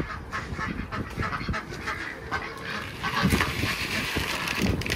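Domestic ducks quacking and honking in irregular bursts, over the patter and rattle of dry poultry feed tipped from a plastic bucket into a feed bowl.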